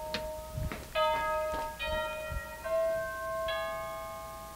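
Wireless doorbell chime playing a slow melody of ringing notes, a new note about every 0.8 s, each fading away, with the last dying out near the end. It is being rung from its remote push button as an emergency call for help.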